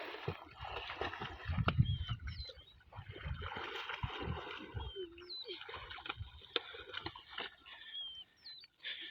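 Water splashing and sloshing as children swim in a dam, with uneven gusts of wind on the microphone and a few faint high chirps.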